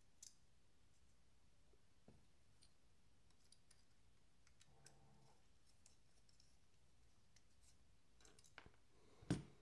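Faint, sparse metal clicks of a small screwdriver and folding-knife parts being handled while screws are threaded into the knife's scale, with one louder knock near the end.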